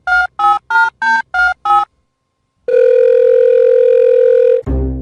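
Telephone keypad beeps: six quick two-tone dialing beeps, about three a second, then a pause and one long steady tone lasting about two seconds, cut off near the end by a sudden loud burst of music.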